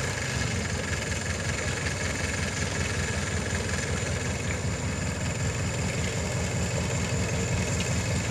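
Kubota diesel engine of a hydraulic-drive swamp buggy running steadily.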